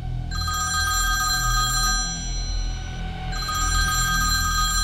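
Mobile phone ringing with an incoming call: an electronic ringtone of steady high tones over a warbling trill, two rings of under three seconds each with a short gap between them.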